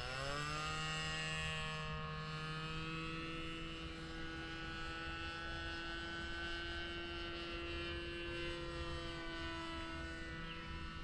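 Small homebuilt RC airplane's motor and propeller whining in flight. The pitch rises at the start as the throttle comes up, then holds nearly steady with slight wavering.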